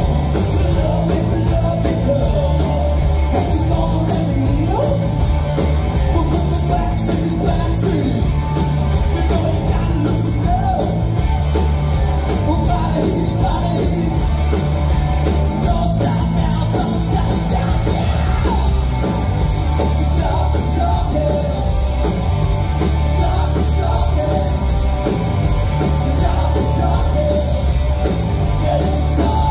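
Live rock band playing loudly: electric guitars, bass and a drum kit with a singer's vocals over them, heard from within the audience. Cymbal strokes keep a steady beat through the first half.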